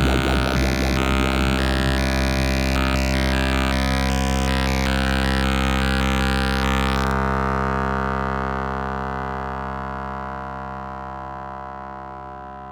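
AE Modular synthesizer holding a low, buzzy sustained note, with the upper tones stepping and changing in quick jumps. About seven seconds in the high part cuts off and the note fades slowly away.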